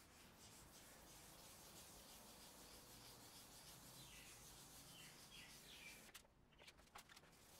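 Near silence: faint rubbing of gloved hands fitting a back panel into a small wooden hex frame, with a few faint light clicks near the end. A few short, faint bird chirps come in the middle.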